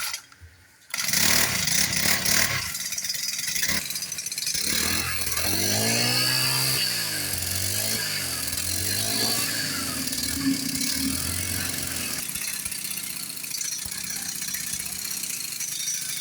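Repaired boat engine starting about a second in, then revving up and down several times before settling into a steady idle.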